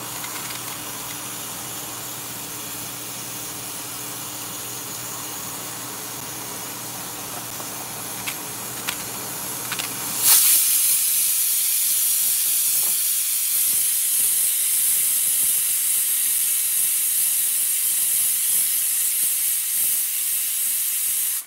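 A steady faint hum with a few sharp knife clicks, then, about ten seconds in, an aluminium stovetop pressure cooker hissing loudly and steadily as steam vents past its weighted valve: the cooker is up to pressure.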